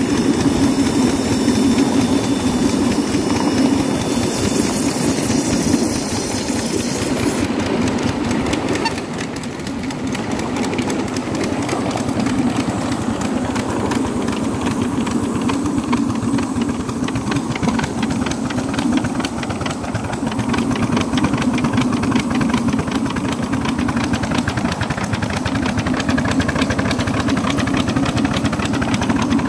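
Miniature 7¼-inch-gauge steam locomotive running along the line, heard from the driving position: a steady rumble and fast clatter of the wheels on the rails. A high hiss stops about seven seconds in.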